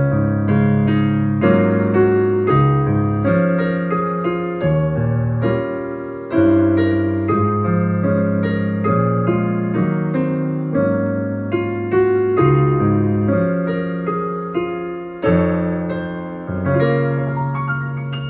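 Piano music: a slow piece of chords over held bass notes, each struck and left to die away.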